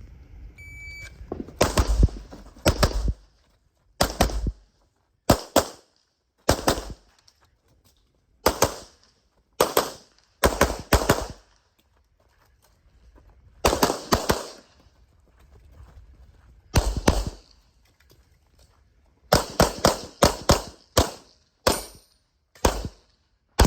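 Shot-timer start beep, then a CZ Shadow 2 pistol firing a rapid string of shots, mostly in quick pairs and short runs, with pauses of a second or two between groups.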